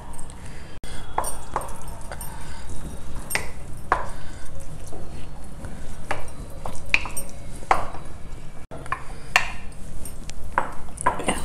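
Wooden spoon stirring curd rice in a glass mixing bowl: irregular taps and light clinks of the spoon against the glass.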